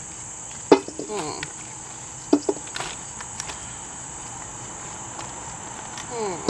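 Steady high-pitched insect chorus of crickets, with a few sharp knocks and taps from handling about a second in and again near two and a half seconds.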